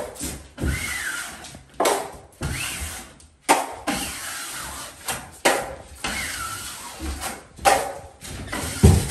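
Steel drywall taping knife spreading and scraping joint compound along a drywall seam and off a mud pan: a series of rough scraping strokes, about one a second.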